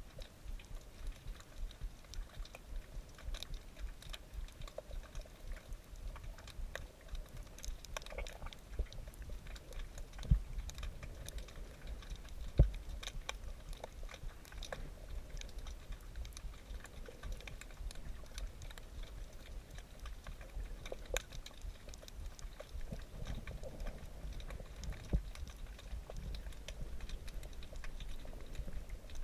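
Underwater crackle of a coral reef: a steady scatter of small sharp clicks, picked up through a GoPro's waterproof housing, with two low knocks about ten and twelve and a half seconds in.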